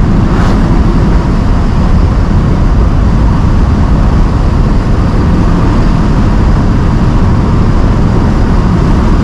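1965 Ford Mustang Fastback under way, its engine and road noise loud and steady inside the cabin.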